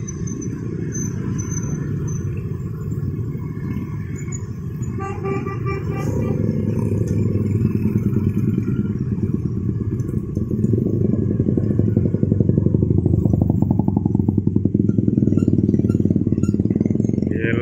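Stream of small motorcycles and other road traffic crossing a railway level crossing, their engines running, with the sound growing louder as riders pass close by. A horn sounds briefly about five seconds in.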